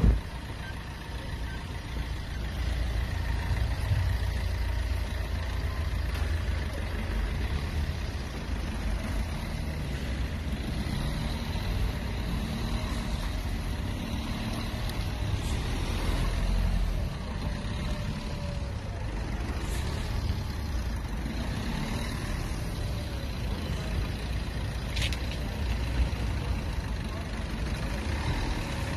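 Fiat Linea's engine idling with a steady low rumble after its emission test, with street traffic around. A brief knock sounds right at the start.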